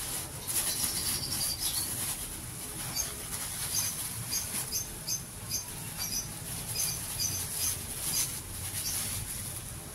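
Plastic parcel wrapping, black bubble wrap and a clear poly bag, crinkling and rustling irregularly as it is cut, torn and pulled off by hand.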